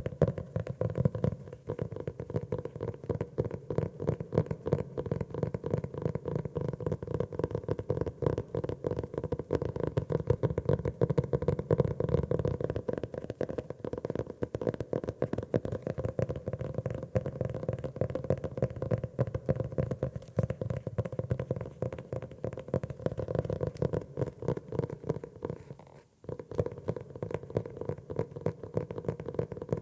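Fast, continuous tapping on a grey notebook, many taps a second, with a brief pause near the end.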